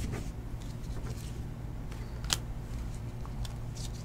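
Trading cards being handled and slid off a stack one at a time: soft rustling with a few light clicks, the sharpest a bit past two seconds in, over a low steady hum.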